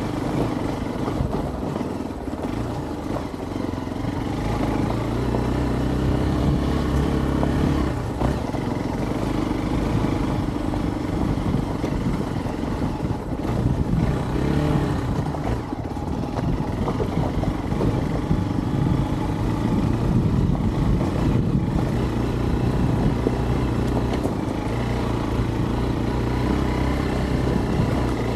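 Hero Xpulse 200's single-cylinder four-stroke engine running while ridden off-road, its pitch stepping up and down with the throttle.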